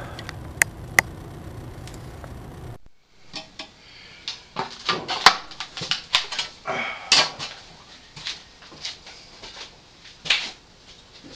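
A melting-furnace burner running steadily with two sharp clicks, cut off abruptly a little under three seconds in. After it come scattered sharp clicks and knocks.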